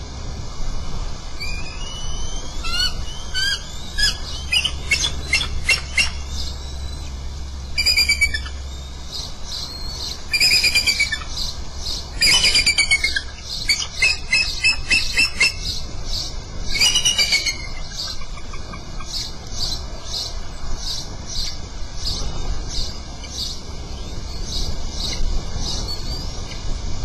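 Bald eagles calling at the nest: a near-fledging eaglet and its parent give series of high, rapid, chittering piping notes, in several loud bursts with steadier repeated chirps between.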